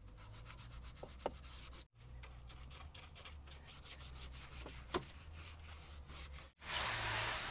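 Stiff-bristled detail brush scrubbing a wet plastic door sill and trim, a scratchy rubbing in quick back-and-forth strokes. Near the end it gives way to a louder steady hiss.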